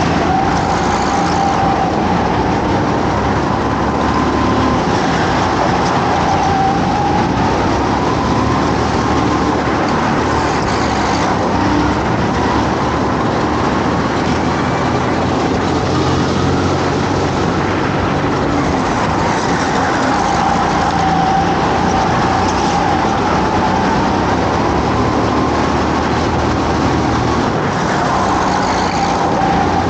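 Go-kart engine running at race pace, its pitch rising and falling again and again as it speeds up and slows for the corners.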